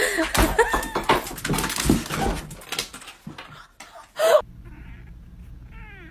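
Household pet sounds: a busy run of knocks and short animal calls, ended about four seconds in by a sharp loud sound. Then it drops to a steady low hum, with a cat's short falling meow near the end.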